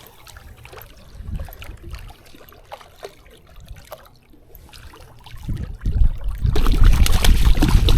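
Water trickling and lapping with small ticks as a hooked trout is played close to a kayak. About five and a half seconds in, a loud, rough splashing noise with a heavy low rumble starts and keeps on.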